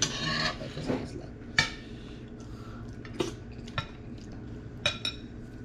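Metal spoons clinking and scraping against ceramic bowls and plates while eating, with about four sharp clinks spread over a few seconds. The loudest clink comes about one and a half seconds in.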